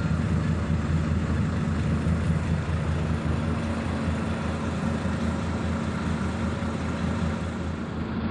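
Bus diesel engine idling steadily, a low even hum heard from inside the bus cabin.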